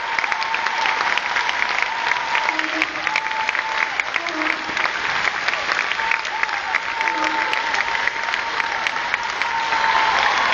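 Large crowd applauding, many hands clapping at once in a dense, steady patter.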